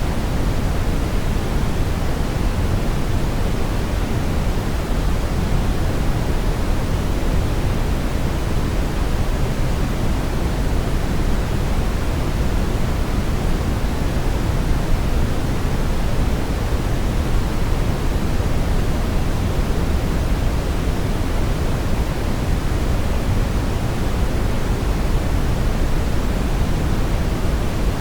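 Steady brown noise: an even, unbroken hiss-like rumble weighted toward the low end, with no changes or events.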